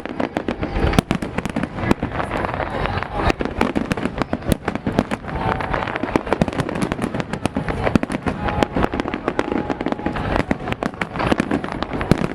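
Aerial fireworks going off in a rapid, dense barrage of bangs and crackles, many reports a second without a pause.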